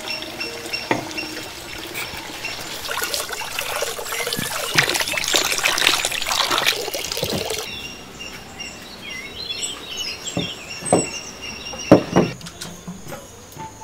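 Tap water pouring and splashing into a clay bowl as pumpkin slices are rubbed clean by hand, loudest through the middle. Birds chirp afterwards, and a few sharp knocks come near the end.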